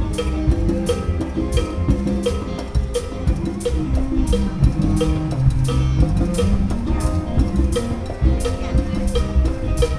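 Music with a steady drum beat and bass.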